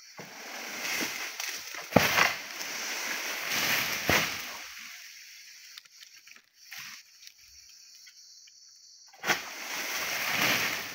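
Oil palm fronds rustling and scraping as a long-pole harvesting sickle is worked into the crown of a tall palm, with two sharp snaps about two and four seconds in. It goes quieter in the middle, then rustling picks up again near the end.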